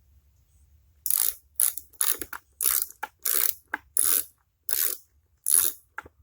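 Hand ratchet wrench clicking in a run of short strokes, about nine of them, starting about a second in, as it backs out a valve-cover bolt on a Chrysler 350 V8.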